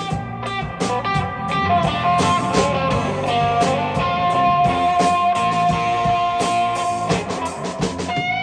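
Live blues-rock band playing an instrumental passage: an electric guitar leads over bass guitar and drums, picking quick notes and then holding one long sustained note from about two seconds in until about seven seconds.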